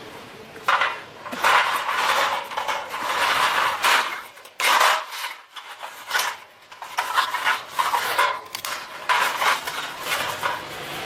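Irregular clinks, clatters and scrapes of metal being handled, with a short lull about five seconds in.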